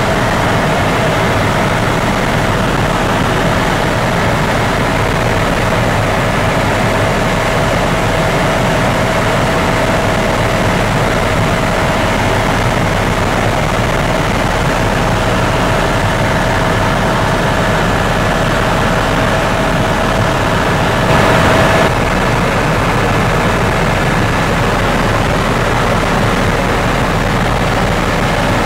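Helicopter in flight heard from inside the cabin: a loud, steady turbine-and-rotor noise with a constant whine on top and a fast low pulse underneath. There is a brief louder swell about 21 seconds in, after which the whine fades.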